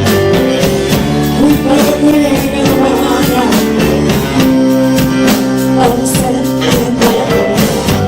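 Band playing a blues-rock song, guitar and sung lines over a steady drum beat.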